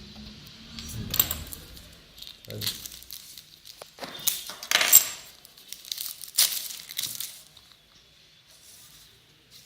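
Phone box packaging being torn open by hand at the side: several rough tearing and crinkling bursts, the loudest about five seconds in, dying down after about seven and a half seconds.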